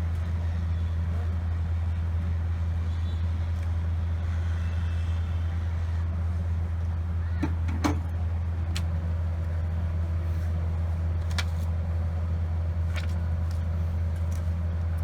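Steady low electrical or motor hum, with a few small sharp clicks and taps about halfway through and later.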